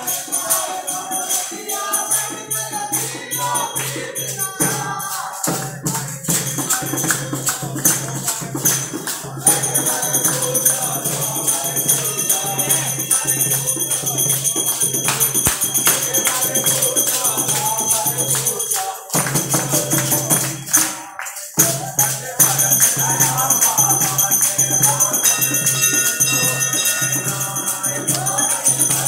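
A crowd singing a Hindu devotional bhajan together, backed by steady rhythmic clapping and jingling hand percussion. The music breaks off briefly twice about two-thirds of the way through.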